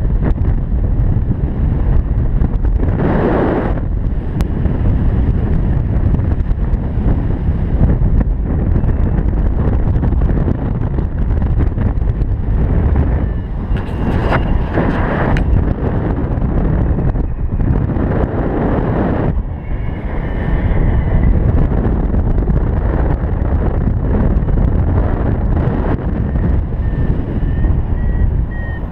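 Wind rushing over the microphone of a camera on a flying paraglider: a steady low rumble that swells louder three times. Near the end come faint short beeps climbing in pitch, a variometer signalling lift.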